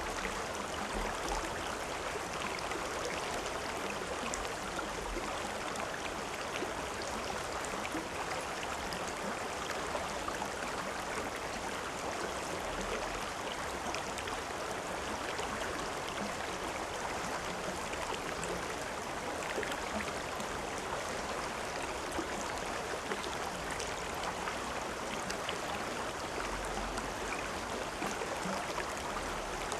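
River or stream water flowing steadily over rocks, a continuous rushing with small splashes and gurgles.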